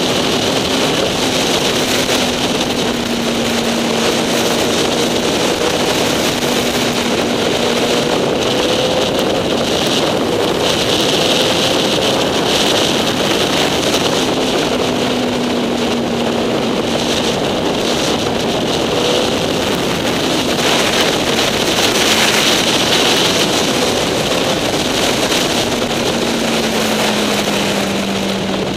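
Motorcycle engine running at a steady cruising speed, its pitch drifting gently up and down through the bends, with heavy wind buffeting the microphone.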